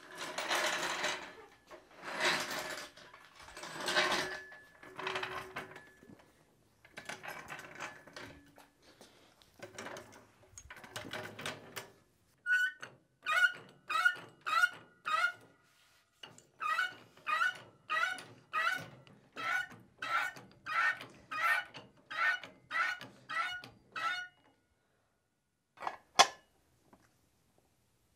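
Hydraulic floor jack being positioned with scrapes and knocks, then pumped by its long handle to lift the front of the car: even strokes about one and a half a second, each with a short squeak. Near the end a single sharp metal clank.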